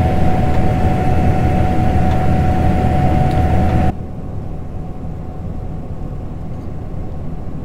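Harvest machinery engine running steadily in a corn field: a low rumble with a thin steady whine over it. About four seconds in it drops suddenly to a quieter, steady rumble without the whine.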